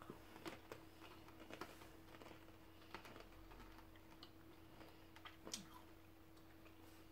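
Faint, irregular crunching clicks of pretzels being chewed, over a faint steady hum.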